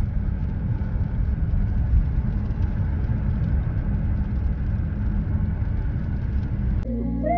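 Steady low road and engine rumble inside the cabin of a vehicle driving in the rain. Near the end it cuts off and music with a simple melody begins.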